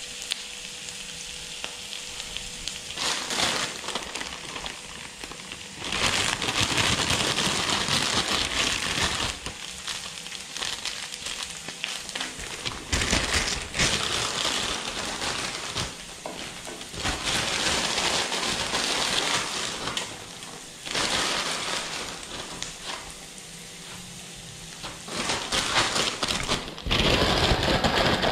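Stir-fry sizzling in a hot wok. The sizzle grows louder and dies back several times.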